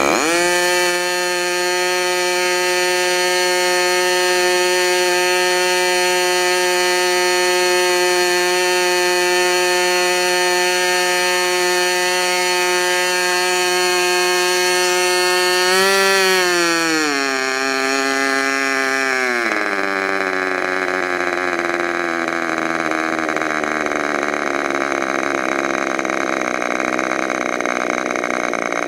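Modified K&B .61 two-stroke glow-fuel model airplane engine, spun by an electric starter, catching at once and revving up to a steady high-pitched run. About sixteen seconds in, as the needle valve is adjusted, its pitch drops in steps and it settles into a lower, rougher run that keeps slowly falling.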